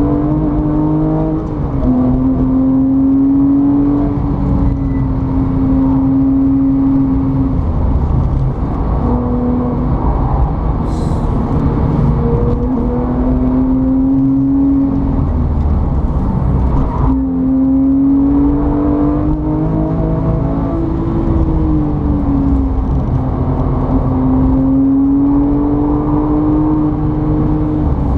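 A motor running steadily for the whole stretch, its pitch drifting slightly up and down with a few brief dips.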